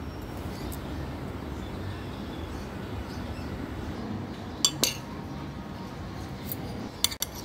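A metal spoon clinking against a dish of boiled black chickpeas, over steady low background noise. There are two sharp clinks about two-thirds of the way through and a quick run of three near the end.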